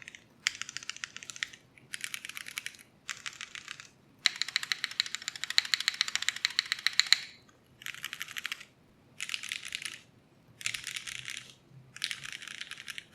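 Typing on a Kohaku R2 mechanical keyboard with Cherry MX Nixie linear switches (lubed, filmed and spring-swapped) on an aluminium plate, under GMK keycaps. Rapid runs of keystrokes come in short bursts with brief pauses between them, and the longest run is near the middle.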